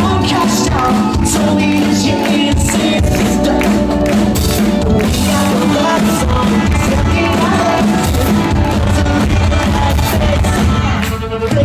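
Live pop-rock band playing at full volume: a lead singer over electric guitars and a drum kit, with a brief break in the music about eleven seconds in.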